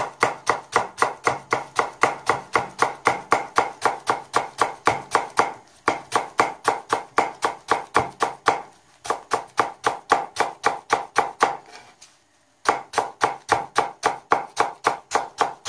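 Kitchen knife slicing a leek thinly on a plastic cutting board: quick, even knocks of the blade on the board at about four a second, in runs broken by three short pauses.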